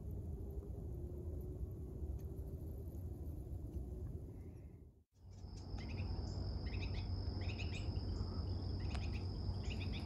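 Ruby-crowned kinglet calling: several short clusters of quick, dry chattering notes, over a steady high insect trill, with a low background rumble underneath. The calls and the trill begin about halfway through.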